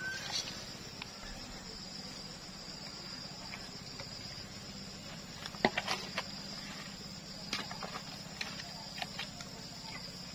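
Insects give a steady high-pitched drone throughout, and from about halfway in come a few sharp clicks and knocks as bamboo tubes and sticks are handled at a small wood fire; the loudest knock comes a little past halfway.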